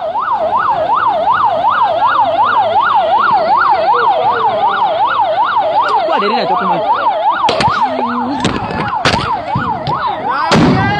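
Vehicle siren in fast yelp mode, its pitch sweeping up and down about four times a second, fading out about six seconds in. Several sharp knocks follow near the end.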